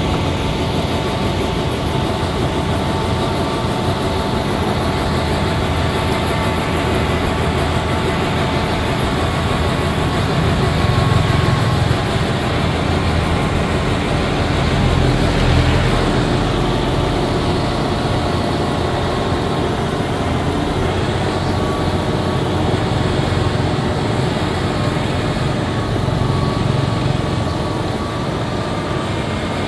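Motor grader's diesel engine running steadily under load, a continuous low drone that swells a little a few times.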